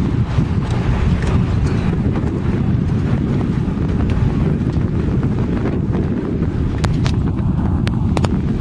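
Wind buffeting the microphone with a steady low rumble, over the sound of the open sea; near the end come a few sharp clicks.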